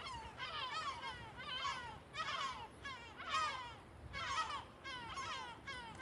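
A flock of birds calling as they circle overhead: short calls, one or two a second, some overlapping.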